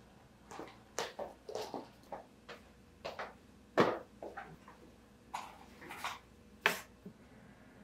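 Irregular knocks, taps and light clatter of things being handled and set down on a desk, with a sharp knock about four seconds in and another shortly before the end.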